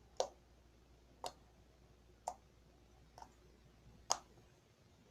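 Homemade glue slime being squeezed and worked by hand, giving five short, sharp popping clicks about a second apart.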